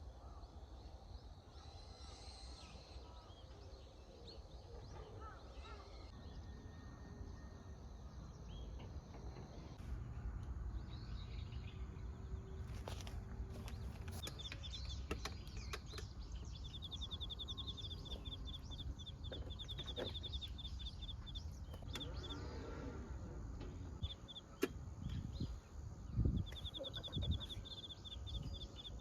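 Wind rumbling on the microphone with birds calling over it: scattered chirps and a rapid high trill repeated several times, and a few knocks near the end.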